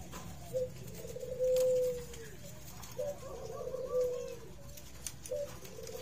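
Spotted dove cooing: three repeated phrases about two and a half seconds apart, each ending in a drawn-out steady note.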